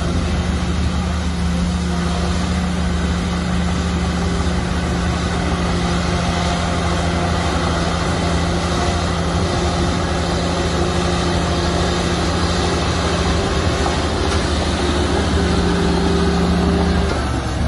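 Heavy diesel earthmoving machinery running steadily under load, a constant low engine drone with a slight shift in pitch near the end.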